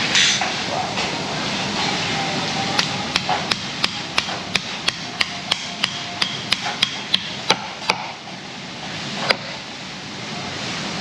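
Knife chopping on a cutting board: a run of sharp, evenly spaced strokes, about three a second, lasting roughly five seconds, then a single further strike.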